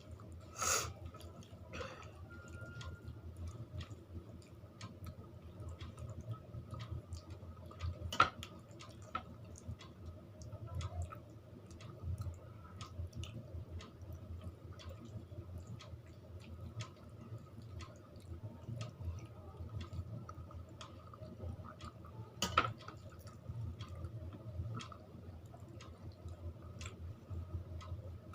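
Close-up eating sounds: wet chewing and small mouth clicks while eating rice with fish curry, dal and mashed potato, with a few sharper clicks and a steady low hum underneath.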